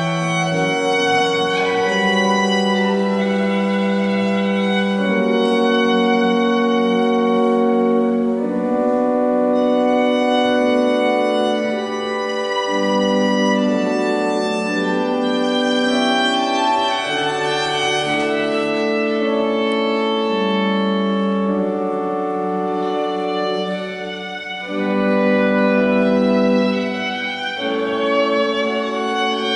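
Violin and church organ playing classical music together, the organ holding long chords under the violin's line. It dips briefly in loudness about three-quarters of the way through, then swells again.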